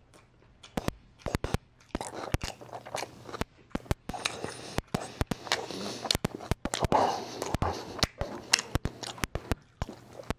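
Close-miked chewing of a spicy mouthful of kimchi and chili: wet mouth clicks and smacks with some crunching, coming irregularly.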